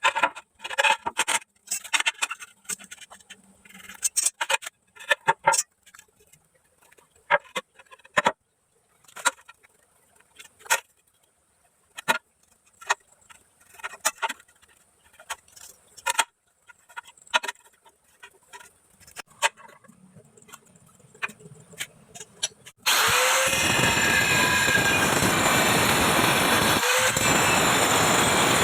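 Scattered sharp taps and knocks of tiles and tools being handled. About 23 seconds in, a handheld electric cutter starts with a brief rising whine and runs loud and steady as it cuts tile, dipping for a moment near the end.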